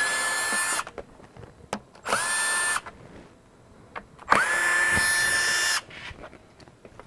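Power drill-driver backing out door-panel screws in three short runs, each rising quickly in pitch to a steady whine; the last run is the longest.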